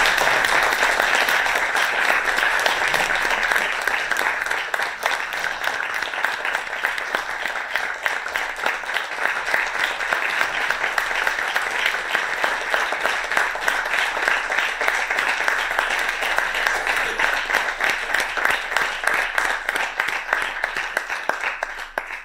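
Audience applauding: dense, steady clapping that eases slightly after a few seconds and then stops abruptly.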